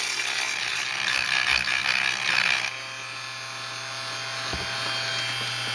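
Black & Decker RTX rotary tool with a sanding drum running against the edge of scrap sheet metal, making a harsh grinding rasp. The grinding stops abruptly a little under three seconds in, leaving a quieter steady motor whine and hum.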